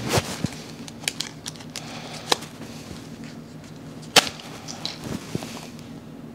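Scattered sharp clicks and taps, about eight in all, the loudest about four seconds in, over a faint steady low hum.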